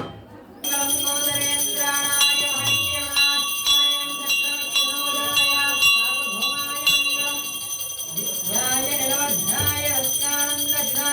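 A puja bell rings continuously in quick repeated strokes, starting just after a sharp knock. From about eight seconds in, a voice chants over the ringing.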